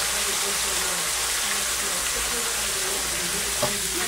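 Whole snapper frying in hot oil, a steady sizzle, with a short knock about three and a half seconds in.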